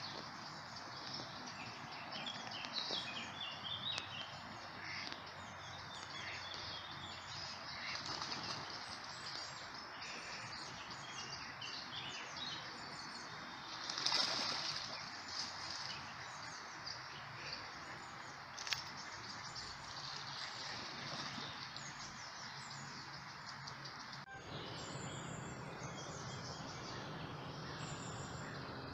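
Small birds chirping and singing over a steady outdoor hiss. About halfway through, a duck beats its wings and splashes on the water, the loudest sound.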